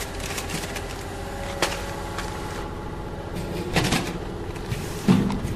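420B bag packing machine running with a steady hum, over which plastic-film bags crinkle and knock as they are handled, a few sharper clicks standing out about a second and a half in, near four seconds and near five seconds.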